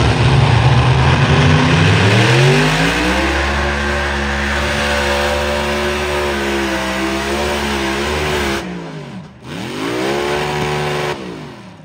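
Modified pulling tractor's engine running at full throttle under load, climbing in pitch and holding high. About nine seconds in the revs drop sharply, climb back up, and then cut off suddenly near the end, as the tractor unloads its rear tyres and starts bouncing.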